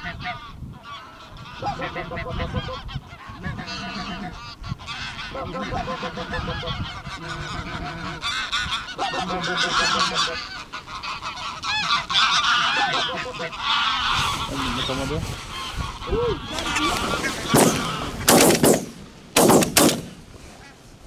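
A large flock of barnacle geese calling, a dense clamour of short honks. Near the end come several shotgun shots in quick succession, within about two seconds.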